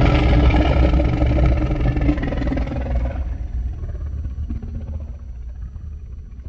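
Deep, rumbling monster roar sound effect. It starts suddenly, holds strong for about three seconds, then slowly fades away.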